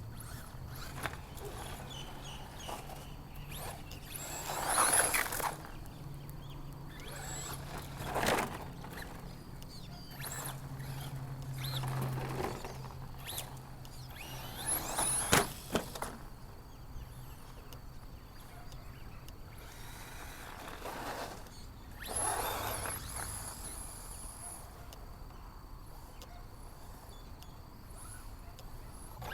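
Brushless electric RC truck driven in short bursts, its motor giving a high thin whine with each burst of throttle, five or so times, with a sharp knock about fifteen seconds in from the truck hitting something or landing.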